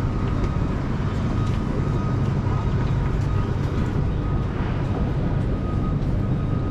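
Stationary electric tram humming at the platform: a steady low drone with a thin, steady high whine from its onboard equipment, and faint scattered ticks.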